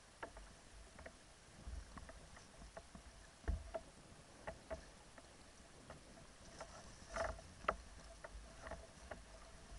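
Small waves lapping and slapping against the hull of a sea kayak in irregular clicks and splashes, a few louder slaps about three and a half and seven seconds in, over a low wind rumble on the microphone.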